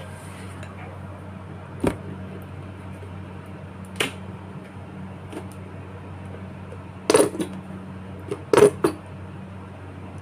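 Kitchen utensils clinking and knocking against a cooking pot: single knocks about two and four seconds in, then two quick clusters of louder clatter near the end. A steady low hum runs underneath.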